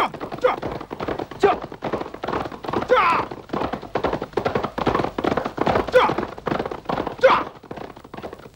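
Hoofbeats of several horses galloping on a dirt track, a dense irregular drumming of thuds, with a few short high cries over them.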